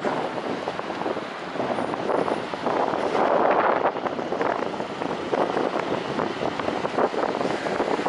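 A semi-trailer truck driving past, loudest about three to four seconds in, with wind buffeting the microphone.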